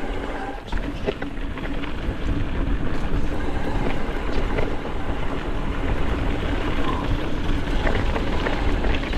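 Off-road vehicle engine running at a steady pitch over a continuous low rumble, with scattered small knocks.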